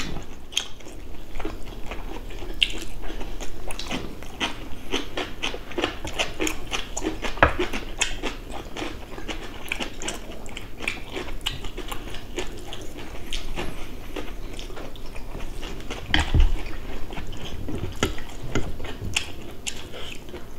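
People eating at close range: chewing and biting with many small irregular clicks from chopsticks and spoons on dishes. A duller, louder knock comes about sixteen seconds in.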